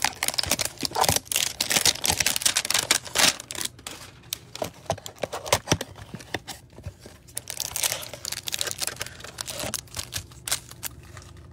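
Cardboard trading-card hanger box being torn open by hand: a rapid run of tearing and crackling over the first few seconds, then sparser crinkling as the foil-wrapped card stack is pulled out and handled.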